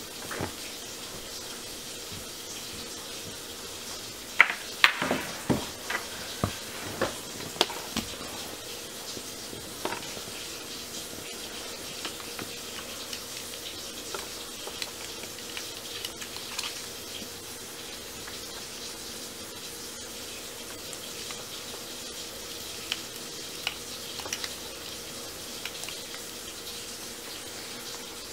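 Steady background hiss with a faint hum, broken by a quick run of sharp clicks about four to eight seconds in and a few single clicks later.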